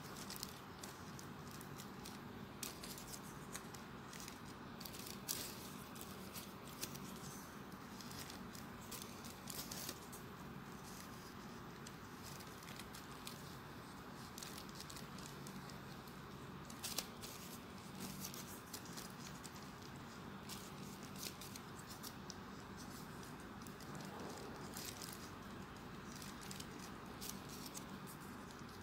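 Soft rustling and scattered light clicks of folded paper origami units being handled and pressed together on a ring, over a steady faint background hiss.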